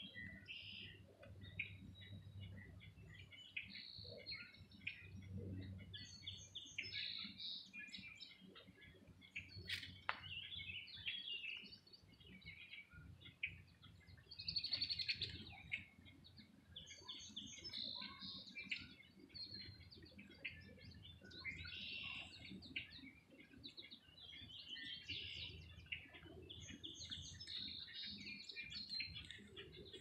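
Several songbirds chirping and singing in short, overlapping calls, with a low steady hum underneath and one sharp click about ten seconds in.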